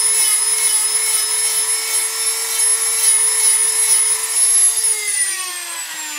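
Handheld high-speed rotary tool whining steadily as its bit grinds wood, rounding over the edges of a carved pine piece. About five seconds in it is switched off and its pitch falls as it spins down.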